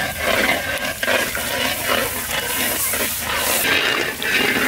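Spice masala sizzling and bubbling in a large karahi over a wood fire as a little water is poured into the hot oil: the masala being cooked down (bhuna) for a curry.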